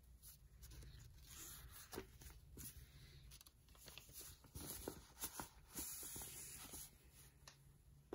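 Faint rustling and scattered small clicks of packaging being handled and opened, loudest in the middle.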